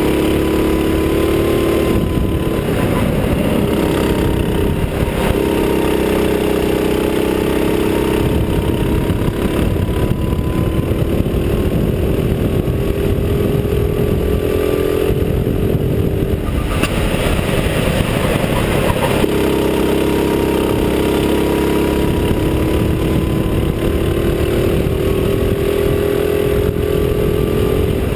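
Go-kart engine running hard under the driver, its pitch climbing slowly as the kart accelerates down a straight. About sixteen seconds in, the engine note falls away briefly as the kart slows for a corner, then it picks up lower and climbs again.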